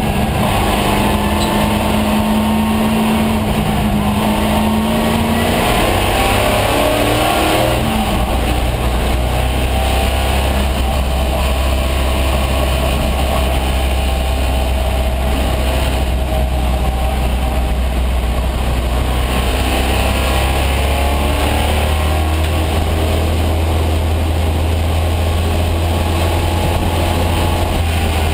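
1974 AMC Javelin AMX race car's engine running hard at racing speed, heard from inside the stripped, caged cabin. The engine note rises and falls with throttle and gear changes through the corners, and a deep low drone builds about eight seconds in.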